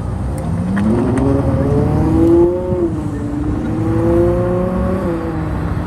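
A car engine revving as it accelerates past. Its pitch climbs steadily for about two seconds, eases off, rises again briefly and drops near the end.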